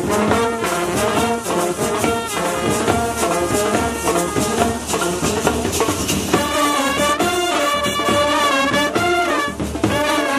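Brass band music, trumpets and trombones playing a tune over a steady drum beat.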